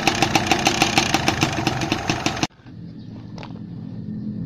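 Motorcycle engine running with a sharp, regular tick about seven times a second, the knock the mechanic puts down to a worn piston he is about to replace. About two and a half seconds in it cuts off suddenly to a much quieter low hum with a few light clicks.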